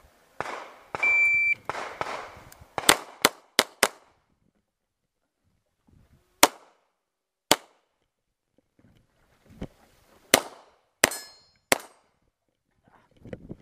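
A shot timer's start beep sounds about a second in, then a pistol fires. There are four quick shots about three seconds in, followed by single shots a second or more apart.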